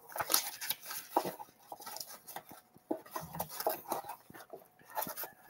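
Rustling and irregular light clicks of sticker packs being handled and shuffled while someone rummages through a box of stickers.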